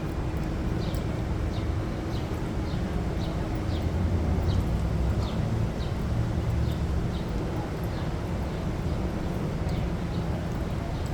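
City street ambience: a steady low rumble of traffic, with a small bird chirping over it, short high chirps about twice a second.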